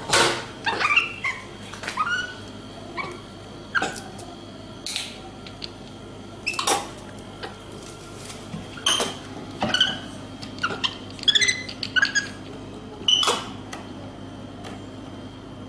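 An animal's short, high-pitched yelps and squeaks, repeated at irregular intervals, over a steady low hum.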